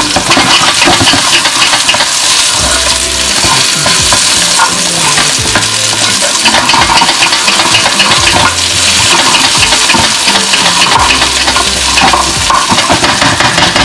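Garlic, ginger and onion sizzling in hot oil in a nonstick wok, stirred with a spatula that scrapes and taps against the pan.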